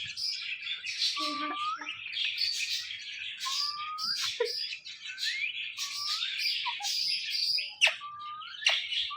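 Ringneck parakeet chattering and calling, with short rising whistles recurring about once a second and a few sharp clicks near the end.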